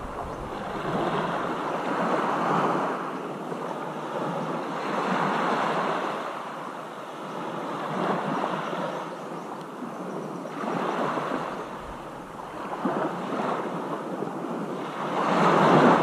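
Ocean waves surging and washing in, a fresh swell every two to three seconds, with the loudest one near the end.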